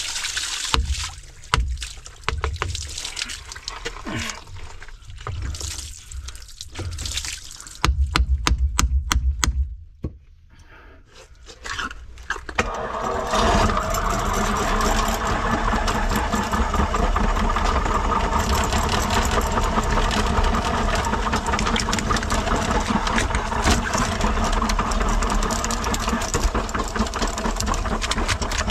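Backed-up wastewater spilling and splashing from an opened cast-iron sewer cleanout, with knocks and a brief loud burst about eight seconds in. About thirteen seconds in, an electric drum drain-cleaning machine starts and runs steadily while its spinning cable is fed into the clogged line.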